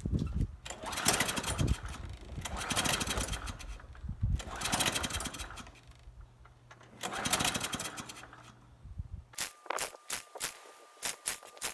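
Kohler engine on an Ariens walk-behind lawnmower being pull-started about four times: each pull is a whirring spin of the recoil starter turning the engine over, and it never catches. The owner suspects the choke, which is sitting open with its linkage rod off. Near the end there is a run of quick sharp clicks and a faint steady tone.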